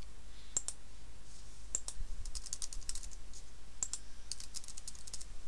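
Computer keyboard keys being typed in short quick runs with brief pauses: a password being entered.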